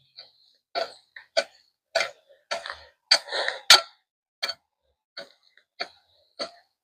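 A hand tool striking the ground again and again, about a dozen sharp chopping hits at an uneven pace of roughly two a second, as hard-to-remove plants or roots are dug out.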